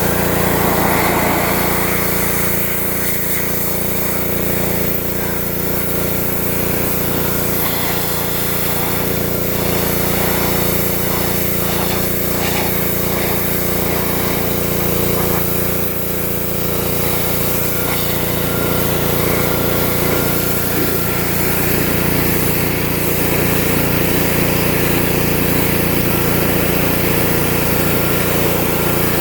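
Pressure washer running steadily, its small engine droning under the hiss of the high-pressure water spray; the spray's sound changes about two-thirds of the way through.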